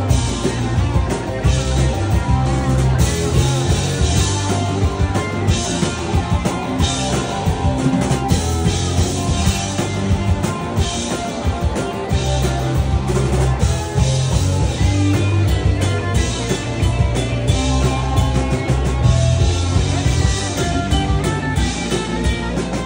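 Live rock band playing at full volume: two electric guitars, electric bass and drum kit, with a heavy, steady beat.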